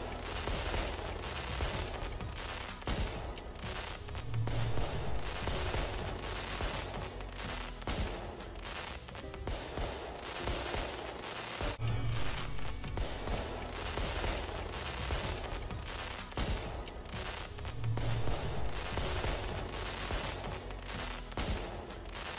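Aerial fireworks display in a dense barrage: a continuous rapid string of bangs and crackles from shells bursting one after another. Music plays underneath.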